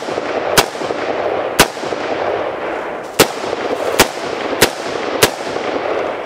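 AR-15 rifle in 5.56 fired six times, semi-automatic, at an uneven pace with shots from about half a second to a second and a half apart. Each shot is followed by an echo that rings on between shots and fades after the last.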